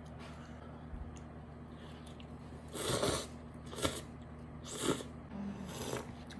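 Someone eating cup ramen: four short, noisy bursts of slurping and chewing in the last half, over a steady low hum.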